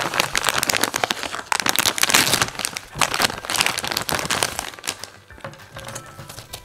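Plastic packaging crinkling and rustling as a coiled power cord is unwrapped from its bag by hand. The crinkling is dense for about five seconds and then thins out to a few quieter rustles near the end.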